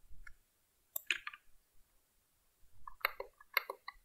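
Computer mouse clicks, faint and short: a few isolated clicks in the first second or so, then a quick run of several clicks near the end.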